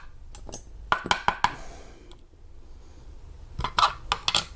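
Small metal parts of a disassembled Abus 34/55 padlock clicking and tapping as they are handled, in three quick runs of sharp clicks with a quieter gap between the second and third.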